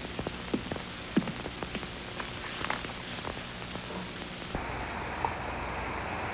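Steady hiss from a worn old film soundtrack, with scattered faint clicks through the first half. About four and a half seconds in the hiss changes abruptly and a low hum joins it.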